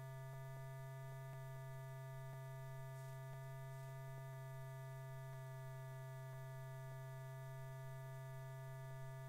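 Steady low electrical hum with a few fainter higher tones over it, and faint ticks about once a second.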